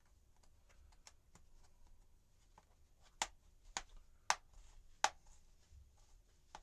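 Small, sharp plastic clicks as a plastic pry pick works along the seam of an HP x360 laptop's plastic case to free its clips. Faint ticks and scrapes come first, then four louder clicks a little over half a second apart, about halfway through.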